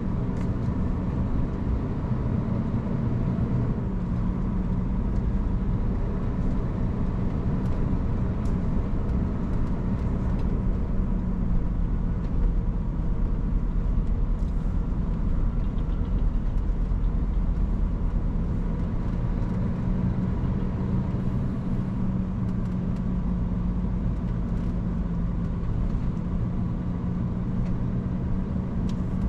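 Scania semi-truck's diesel engine running as the truck drives, heard inside the cab: a steady low drone whose pitch shifts a little a few times as speed changes, over low road rumble.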